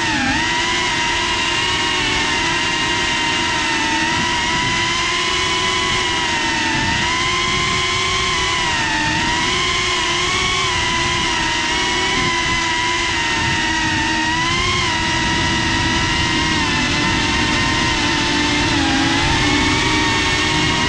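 FPV drone's electric motors and propellers whining in flight. The pitch keeps rising and falling with the throttle, with a sharp dip right at the start.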